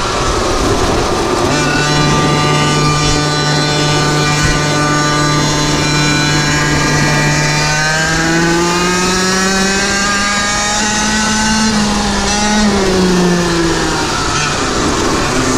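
GoPed GoQuad racing quad's small engine running hard at high revs, a steady drone whose pitch climbs over a few seconds past the middle and drops back near the end.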